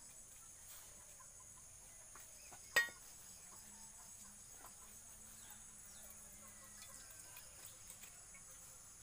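Steady high-pitched insect chirring, crickets, with one sharp metallic clink of steel utensils about three seconds in.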